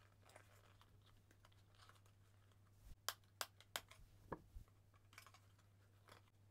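Faint handling of a small cardboard toy box being opened: a few soft clicks and crackles of cardboard and plastic about halfway through, over a low steady hum.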